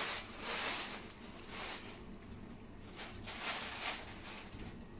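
A half lemon squeezed by hand over a tub of chopped raw fish and vegetables: juice squishing out and dripping, in several short bursts.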